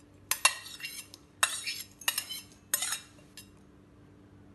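Steel bowl clinking and clattering against the rim of a stainless-steel mixer-grinder jar as chopped ginger and green chillies are tipped into it: four or five short metallic strikes with a ringing tail over the first three seconds, then quiet.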